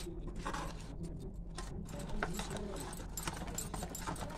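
Steel ladle stirring thick idli batter in a stainless steel bowl, scraping and clinking against the sides in quick, irregular ticks.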